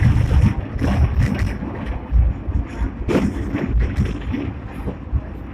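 Sixth-generation Hong Kong double-deck tram running along its track, heard from the driver's cab: a loud low rumble of wheels on rails with repeated knocks and rattles, the loudest about a second and three seconds in.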